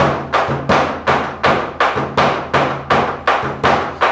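A drum beaten in a steady rhythm, about three strikes a second, dying away at the end.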